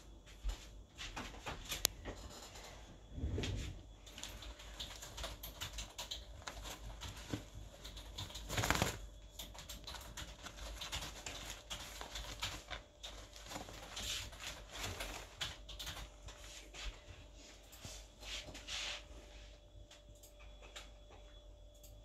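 Thin black plastic bag rustling and crackling in uneven flurries as a kitten squirms and scrambles about inside it.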